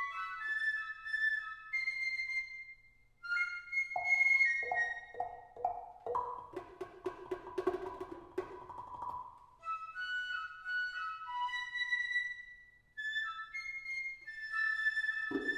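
Contemporary chamber music imitating birdsong: short, high, whistle-like wind-instrument phrases. In the middle there is a stretch of rapidly repeated mallet strokes on tuned percussion, ringing over sustained lower notes.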